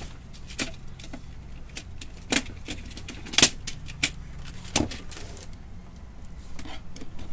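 Irregular clicks and knocks, about six of them, as the black plastic panels and parts of a Brother DCP-T710W inkjet printer are handled by hand, over a steady low hum.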